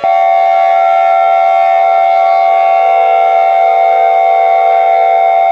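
Loud, steady electronic emergency-alert attention tone, several pitches sounding together without wavering, cutting in suddenly and holding unchanged.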